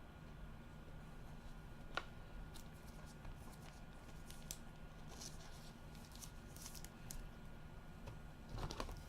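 Trading cards and their plastic and paper packaging being handled: a faint run of small clicks, rustles and crinkles, with a sharp click about two seconds in and a louder rustle near the end.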